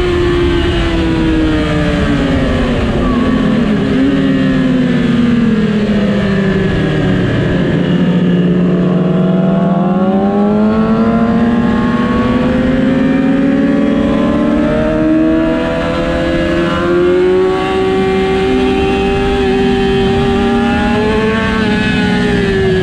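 2007 Yamaha R6's inline-four engine running hard on a race track. Its pitch falls slowly for about the first nine seconds, then climbs steadily again as the bike pulls back up through the revs.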